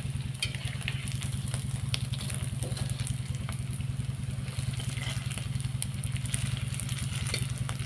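Pieces of glutinous rice cake (ulen) deep-frying in a wok of oil, sizzling with scattered crackles, while a metal spatula now and then clicks against them and the pan. A steady low hum runs underneath.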